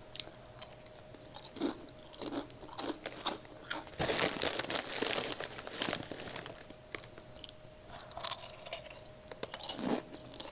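Close-up crunching and chewing of Zapp's Voodoo kettle-style potato chips: a run of crisp, irregular crunches, with a denser, louder spell of crunching about four seconds in.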